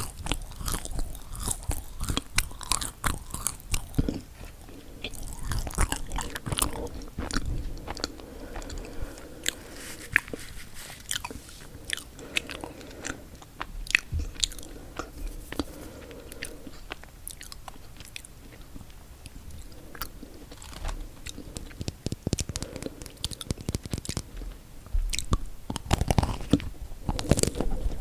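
Close-miked biting and chewing of chocolate-coated marshmallow cookies, with crisp crunches of the chocolate and cookie among softer, sticky chewing. Crunching is dense at first, eases into quieter chewing through the middle, and picks up again near the end.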